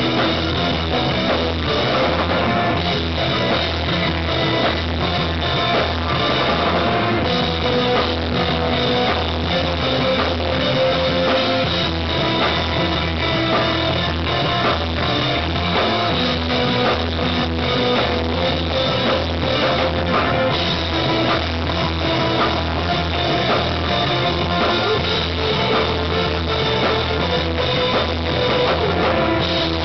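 A rock band playing live: electric guitars and a drum kit, loud and continuous.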